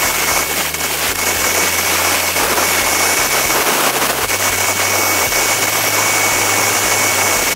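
A power tool running steadily: a loud, even hiss with a thin steady whine through it, cut off abruptly at the end.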